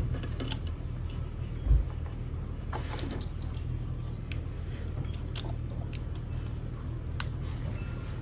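Scattered light clicks and taps of hands and tools working on the engine bay's ignition coils and connectors, with a dull thump a little under two seconds in, over a steady low hum.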